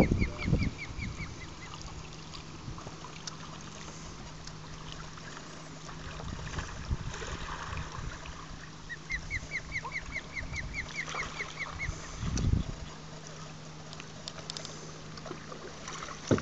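Osprey calling: two series of rapid, repeated whistled chirps, about a dozen notes each, one at the start and one about nine seconds in. A faint low steady hum and a few low thumps run beneath them.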